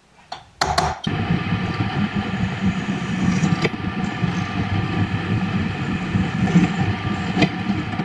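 A sharp metal tap or two from a center punch marking the steel tube, then a drill press running steadily with its bit cutting into a galvanized square steel tube. The sound cuts off suddenly at the end.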